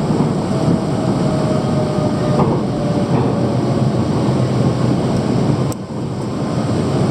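Running noise of a Bangkok MRT Yellow Line monorail train heard from inside the car: a steady rumble with a faint whine that shifts slightly in pitch. There is a brief drop in level with a sharp click about six seconds in.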